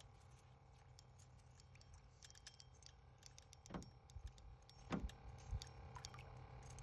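Near silence: a faint steady low hum with small scattered clicks, and a few soft knocks a little past the middle.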